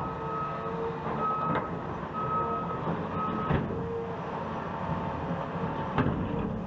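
Construction vehicle backup alarms beeping, a higher and a lower tone, each about once a second, over the steady rumble of heavy machinery, with a few sharp knocks.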